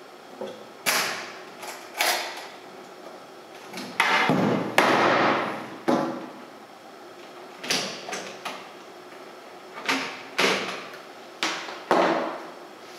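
Sheet-metal case of a small projector-computer being opened and handled by hand: a string of about a dozen clunks and knocks off the metal box, each fading quickly, with a longer scraping rub about four seconds in.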